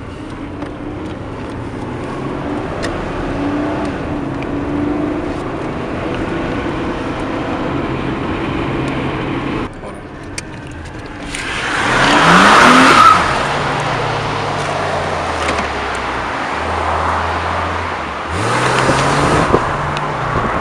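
Nissan Skyline R31 being driven, its engine running through changing speeds. About halfway through it accelerates, the engine note rising and at its loudest, and it pulls harder again near the end.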